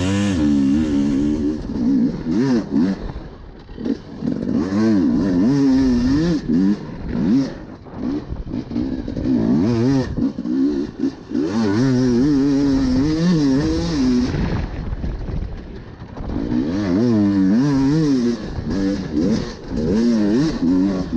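Husqvarna enduro dirt bike engine revving hard, climbing and dropping in pitch over and over as the rider works the throttle and gears around the track. The throttle is chopped briefly every few seconds. Heard up close from a helmet-mounted camera.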